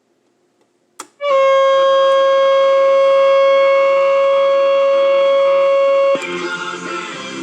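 GE flip clock's alarm going off: a click, then a loud, steady buzzing tone held for about five seconds. Near the end another click cuts the buzz, and the clock radio's speaker comes on playing music.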